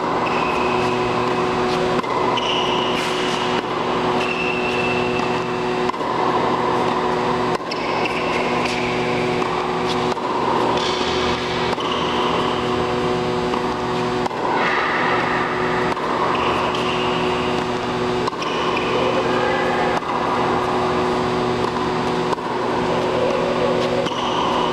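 Tennis rally on an indoor hard court: a racket strikes the ball every few seconds, with short shoe squeaks between shots, over a steady mechanical hum.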